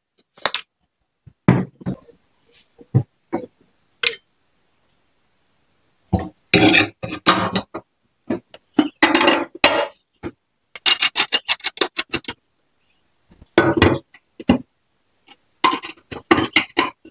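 Metal parts of a scooter clutch assembly clinking and rattling as they are handled and fitted onto an engine shaft: a few separate knocks, then several bursts of rapid rattling clicks.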